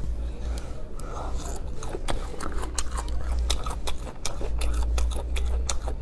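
Close-miked chewing and biting of a chewy strip of spicy braised beef skin, with wet clicks and smacks that come thick and fast from about two seconds in.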